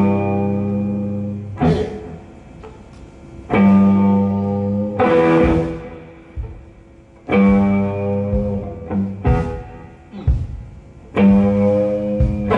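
Guitar playing a slow repeating work rhythm: a ringing chord about every three and a half seconds, each followed by short sharp hits, the 'dig and throw' pattern that blues grew out of.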